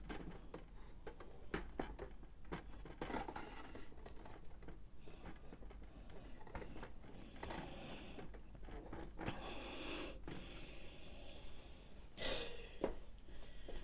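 Packaging being handled and opened: scattered light clicks and several brief rustling, scraping bursts, the longest about ten seconds in.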